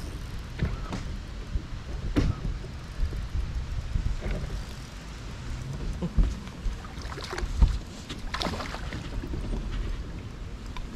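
Wind buffeting the microphone as a low rumble, with scattered knocks and shuffling on a fishing boat's deck.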